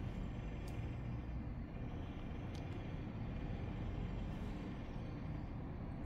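Distant city road traffic: a steady low rumble of many vehicles blended together, heard from high above the city. Two faint sharp ticks sound about a second and about two and a half seconds in.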